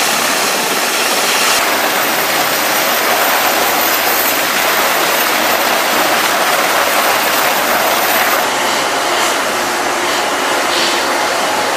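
Navy Seahawk helicopter hovering while lifting a sling load: a loud, steady rushing noise of turbine and rotor wash, with no clear beat of the blades. The noise changes character abruptly twice, about a second and a half in and again about eight seconds in.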